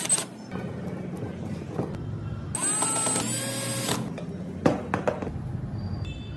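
A cordless drill driving small screws into wood in short bursts, the longest lasting about a second and a half midway through. A few light knocks of wooden parts follow.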